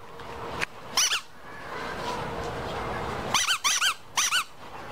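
A dog whining in short, high-pitched yelps, each rising and then falling in pitch: one about a second in and three in quick succession near the end.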